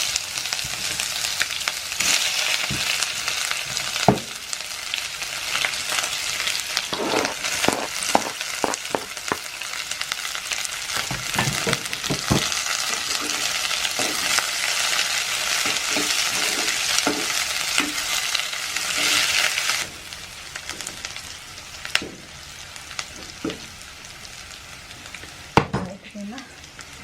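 Onion sizzling in hot oil in a kadai, stirred with a spoon that knocks and scrapes against the pan again and again. The sizzle drops off sharply about twenty seconds in, leaving a much quieter hiss and a few last knocks.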